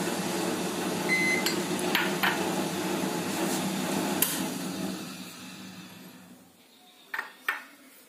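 Light clinks and taps of glass topping bowls and toppings being handled over a pizza on the countertop, over a steady background hum that cuts off about six and a half seconds in; two sharper clicks near the end.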